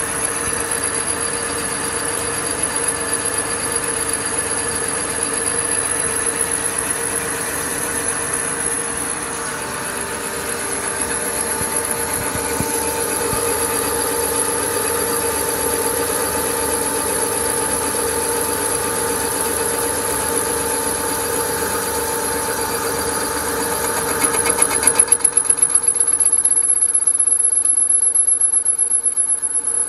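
Small lathe line boring: a boring bar turning in a bore and cutting metal, a steady machine drone with a hum and a thin high whine. About 25 seconds in, the sound briefly gets louder and wavering, then thinner.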